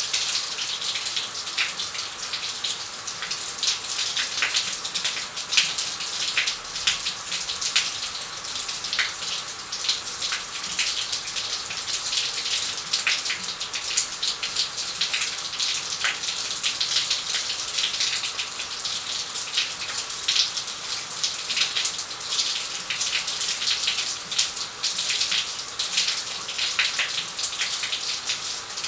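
Shower running steadily: a constant hiss of spray, with many small splashes and droplets hitting the floor.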